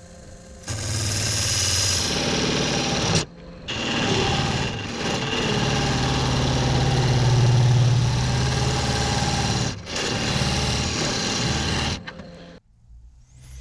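Wood lathe running with a cutting tool biting into a spinning ash blank, cutting out a shallow recess in its end. The cutting comes in three spells, a short one, a long one of about six seconds and a short one, over a steady hum, with brief pauses between.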